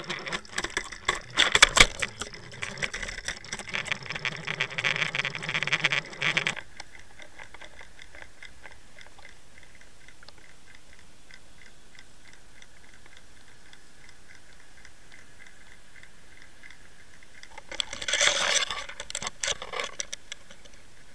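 Clicking and rattling picked up by an underwater camera's microphone as the camera rig and lure are pulled through the water. There is a dense clatter for the first six seconds or so, then a faint steady hiss, then another short burst of clicks about three seconds from the end.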